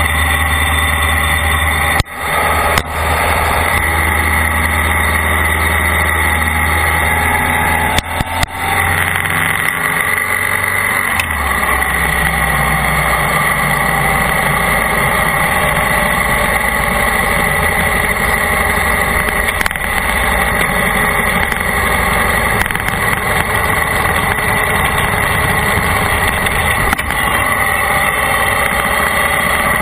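A vehicle engine running steadily during a ride, with a constant low drone. The sound briefly drops twice, about 2 and 8 seconds in, and the engine's low note changes pitch around 11 seconds in.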